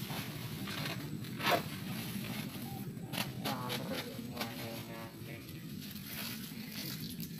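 Woven plastic fertilizer sacks rustling and scraping as they are gripped, shifted and dragged by hand, in a run of short crinkling noises with a louder rustle about a second and a half in. A steady low hum runs underneath.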